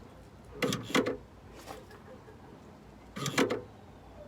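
Pontiac Torrent liftgate release clicking as the newly replaced liftgate switch is pressed: two quick double clicks, the second about two and a half seconds after the first. The click is the sign that the new switch is working.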